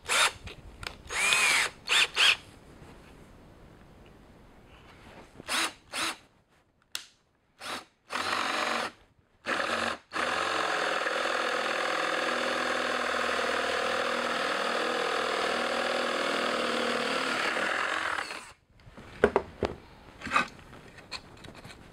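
A cordless drill with a Forstner bit boring a hole through a cedar fence board. It runs in a few short spurts, then steadily for about eight seconds, and stops abruptly. There are knocks from handling the wood near the start and near the end.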